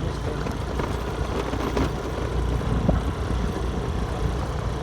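Honda Grazia 125 scooter on the move: its small single-cylinder engine running under road noise, with a steady low rumble.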